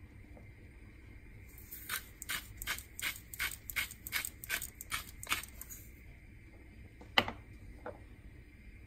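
Salt and pepper grinder twisted over the pan, giving a quick even run of about a dozen ratcheting clicks, then one sharp click about seven seconds in.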